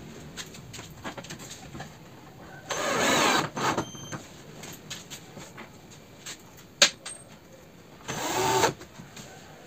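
Cordless drill driving screws into plywood: two short runs of the drill motor, about three seconds in and again about eight seconds in, with a sharp click between them near seven seconds.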